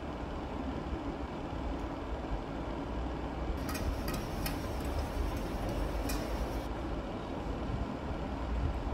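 Chef's knife cutting carrot into julienne strips on a plastic cutting board: a few sharp knife taps in the middle, over a steady low background rumble.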